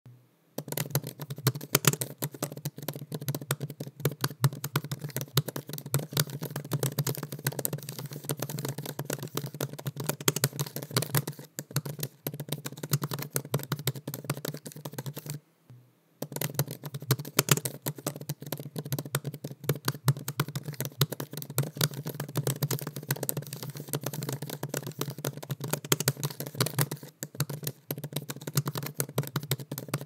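Continuous typing on a MacBook laptop keyboard: a dense run of quick, light key clicks, with a short pause about halfway through.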